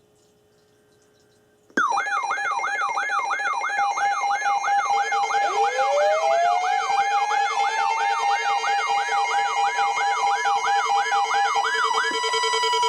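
Warning sirens start suddenly about two seconds in. One sweeps rapidly up and down, about two and a half times a second, over a steady tone. From a few seconds in, another winds up slowly from a low pitch to a high held tone that begins to fall near the end.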